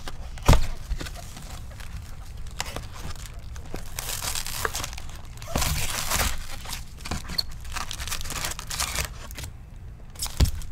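Cardboard box and foil-wrapped trading card packs being opened and handled: crinkling and tearing of wrapping, with a sharp knock about half a second in and another near the end.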